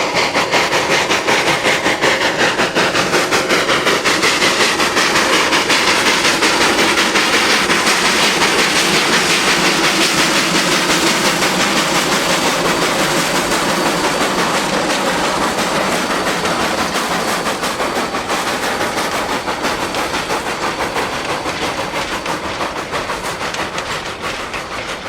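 A 3-foot narrow-gauge freight train rolling past, its wheels clattering steadily over the rail joints and slowly fading toward the end.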